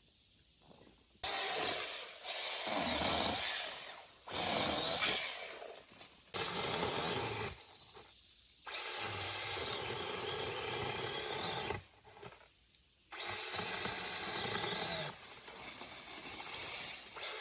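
Small chainsaw cutting a tree branch, run in about six bursts that start and stop abruptly, its pitch rising and falling as it bites into the wood.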